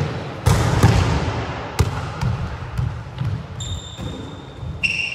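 Volleyballs being hit and bouncing on a wooden gym floor: several sharp smacks that echo through a large hall. High squeaks come in near the end.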